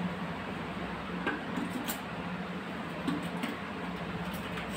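A few faint, scattered clicks and taps of plastic tile leveling clips being handled on a tiled counter, over a steady background hum.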